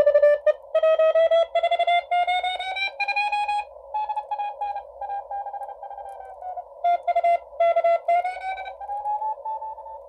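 Morse code (CW) received on a Xiegu G90 HF transceiver on the 40-metre band, playing from its speaker. A keyed tone beeps in dots and dashes over a narrow band of filtered hiss. Its pitch slides up, dips and rises again as the tuning knob is turned across the signal.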